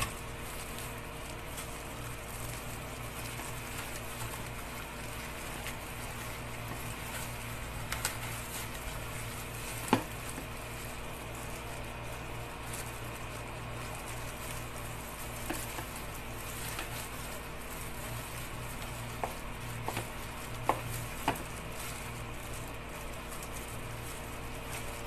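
Plastic-gloved hands handling and tying pandan leaves around chicken: soft rustling and crinkling with a few light clicks and taps, the sharpest about ten seconds in and a cluster near the end. Under them runs a steady low hum.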